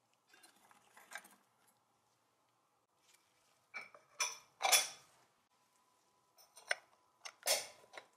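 Metal and glass parts of a Pathé Baby projector clinking and scraping as a retaining ring and a round glass disc are fitted into its circular housing. They come in three short clusters of knocks and scrapes, the loudest near the middle.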